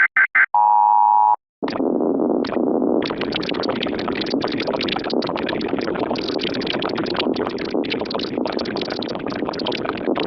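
Mock Emergency Alert System broadcast, heavily distorted. It opens with three quick screeching data bursts and a brief buzzing attention tone, then goes into several seconds of harsh, distorted noise broken by brief dropouts.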